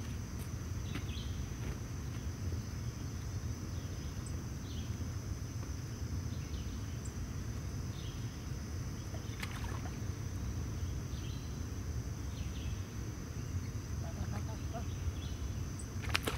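Steady low outdoor rumble with a thin, steady high hum above it and a few faint clicks. Near the end there is a brief sharper sound, a small splash as a fish is let go into the water.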